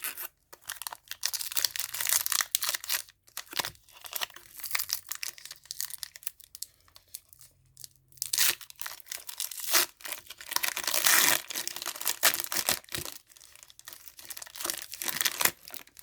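A trading-card booster pack wrapper being torn open and crinkled by hand, in repeated rustling bursts with a lull about halfway through.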